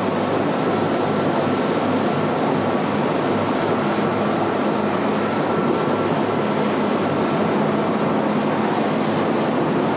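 Cox CXO300 300 hp diesel outboard running steadily at about 3000 RPM with the boat at cruising speed: an even engine drone under a steady rush of wind and water.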